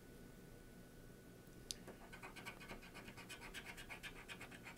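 Faint scratching of a scratch-off lottery ticket's coating, with quick repeated strokes from about two seconds in and a brief high squeak just before.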